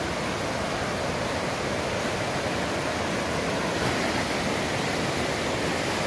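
Steady rush of river water near a waterfall, an even, unbroken noise.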